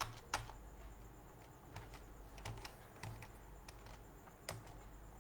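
Faint, irregular clicks of a computer keyboard being typed on, about nine keystrokes spread over a few seconds, over a low steady hum.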